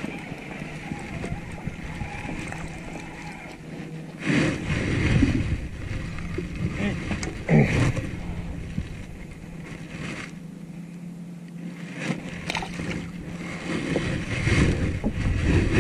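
Steady low hum of the skiff's electric trolling motor, with wind buffeting the microphone in gusts about four seconds in and again near the end, and a sharp knock near the eight-second mark.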